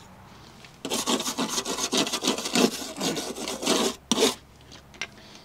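Scraping, rubbing noise lasting about three seconds, followed by a short second scrape.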